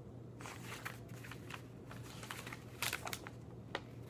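Paper rustling and crinkling as printed sheets are unfolded and handled, with a few sharper crackles about three seconds in.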